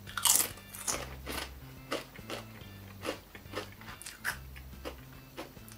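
A kettle-cooked potato chip bitten with a crunch, then chewed with a run of crisp crunches, about two a second.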